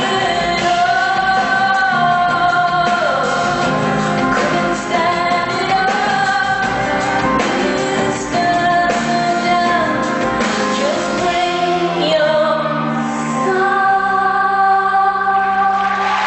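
A female singer and band performing a pop-rock song live, the voice sounding in a large hall, with long held notes in the last few seconds.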